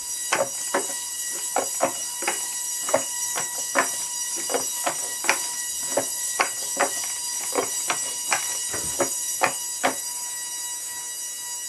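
Hexapod robot's leg servos whining steadily in several fixed high-pitched tones. Over this come sharp irregular clicks, about two to three a second, as the robot walks into position; they stop about ten seconds in and the whine carries on.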